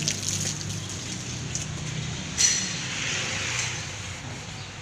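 Windscreen wiper blades of a 2006 Honda Civic sweeping across the wet windshield, over a steady low hum, with a short sharp swish about two and a half seconds in. This is the wet-glass test of whether the wiper rubber still makes noise after the windshield was polished.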